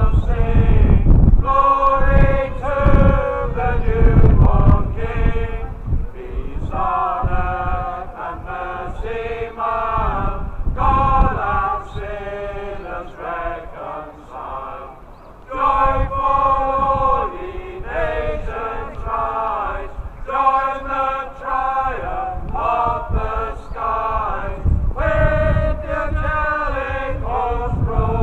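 A man's voice chanting a herald's cry in long held notes, phrase after phrase. Wind buffets the microphone with a low rumble underneath.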